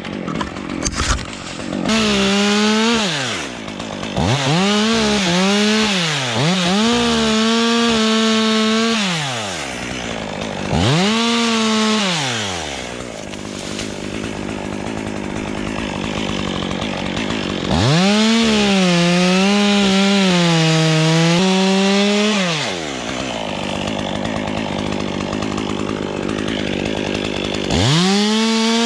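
Stihl MS 201 two-stroke chainsaw revving up in repeated bursts and cutting wood, dropping back between cuts. The engine pitch sags a little under load during the longer cuts.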